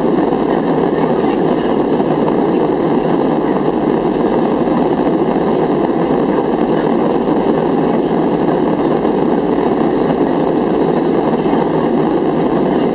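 Steady engine and airflow noise of a Boeing 737-400 with CFM56-3 turbofans, heard inside the passenger cabin during the climb after takeoff with the flaps still extended.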